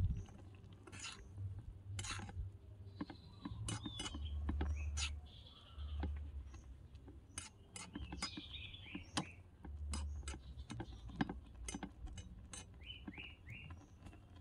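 Small metal spatula clicking and scraping against a miniature wok while bean sprouts, egg and greens are stirred, in many short irregular clicks. Birds chirp briefly in the background several times.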